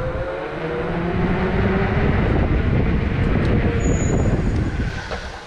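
Electric bike riding fast on a concrete floor: tyre rumble and wind buffeting on the handlebar camera, with a faint electric motor whine rising slightly in pitch at the start. The noise swells over the first couple of seconds, holds, then eases toward the end.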